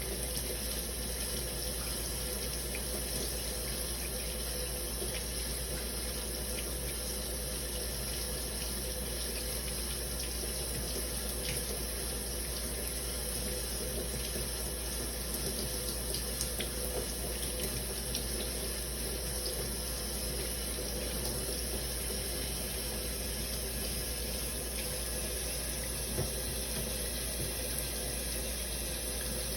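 Shower water running steadily, a continuous even spray with a few faint drip-like ticks.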